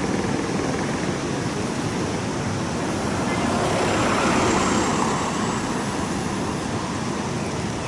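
Heavy storm-driven surf and strong wind making a steady rushing roar, swelling for a couple of seconds about four seconds in as a wave breaks.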